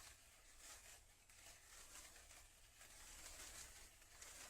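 Near silence with the faint, flickering fizz of a burning diamond sparkler.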